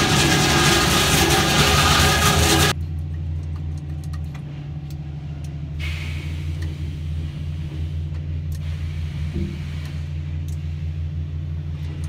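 Loud heavy-machinery noise with several steady tones cuts off abruptly a little over two seconds in. A quieter, steady low hum of sawmill machinery follows, muffled through the glass of the operator's booth, while the log deck's step feeder turns logs.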